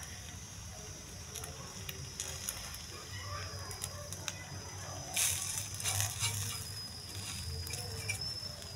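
Egg frying in a hot pan with no oil, a faint steady sizzle with small crackles, while a metal fork taps and scrapes against the pan, loudest in a short scrape about five seconds in.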